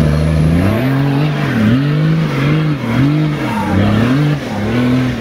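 Nissan Patrol off-road 4x4's engine revving up and down under heavy load, rising and falling about once a second, as it works its way up a steep dirt climb with the wheels spinning.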